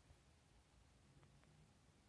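Near silence: faint room tone with two faint ticks just over a second in.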